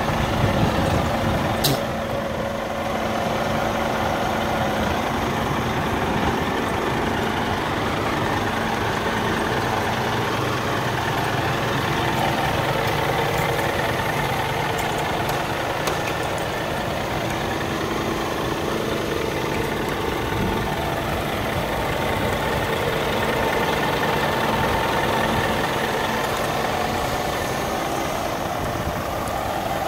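Scania G440 tractor unit's 13-litre inline-six diesel idling steadily, with a single sharp click about two seconds in.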